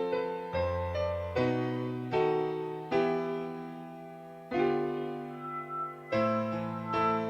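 Piano playing slow chords, each struck and left to ring and fade, roughly one a second.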